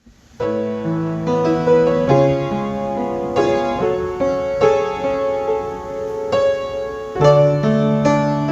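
Slow keyboard music with a piano-like tone, playing held chords that change every second or so and starting about half a second in: prelude music for a church worship service.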